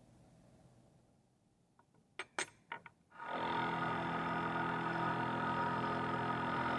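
A few light metal clinks, then a machine tool's motor and drive start up about three seconds in and run steadily with an even, multi-tone hum.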